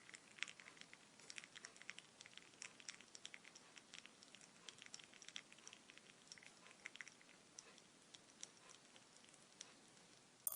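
Poured liquid settling in its container: faint, irregular little ticks and crackles, several a second, thinning out to almost nothing over the last couple of seconds. A new pour starts at the very end.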